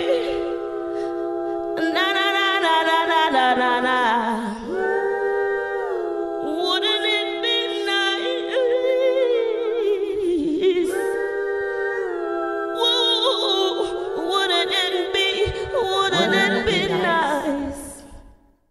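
A cappella female vocal harmonies: several layered voices singing long held notes in phrases a few seconds long, ending in a fade-out near the end.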